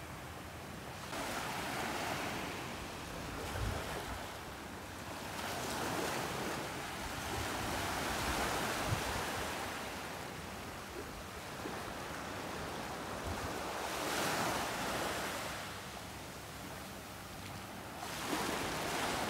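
Small waves lapping and washing up a sandy beach, the surf swelling and fading every few seconds.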